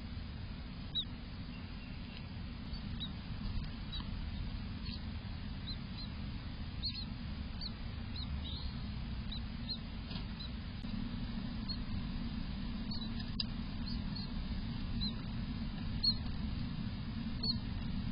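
Newly hatched eastern bluebird nestlings giving thin, high, squeaky begging peeps, short and scattered throughout, over a steady low rustling noise inside the nest box.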